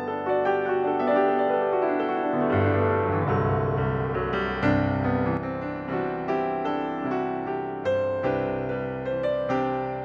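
Piano music: a run of struck notes over held low bass notes that change every second or two.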